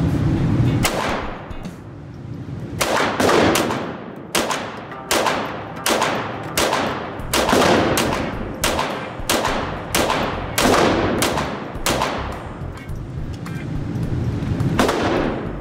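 Beretta 92FS-pattern .22 LR semi-automatic pistol firing a string of about twenty shots at a steady, deliberate pace of one to two a second, each crack echoing in an indoor shooting range. Near the end there is a pause of about two seconds before one more shot.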